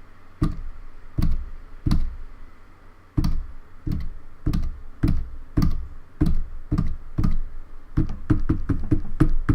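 Keys of a Logitech K360 keyboard being pressed one at a time, a sharp click with a dull thud each, roughly every half second and coming faster near the end: the keys are being tried out after cleaning stuck keys with isopropyl alcohol.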